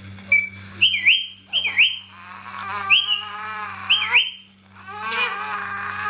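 Rose-ringed parakeet giving about five short, sharp, high calls that each dip and rise in pitch, within the first four seconds. A wavering, whining voice, like a baby fussing, comes between the calls and again near the end.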